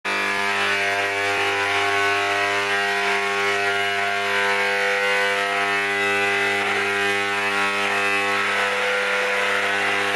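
Handheld electric paint sprayer running steadily with a buzzing hum while spraying paint onto a plaster wall.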